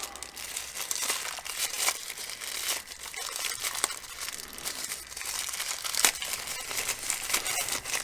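Plastic packaging crinkling and rustling as it is handled, with a few sharp clicks and taps; the loudest is about six seconds in.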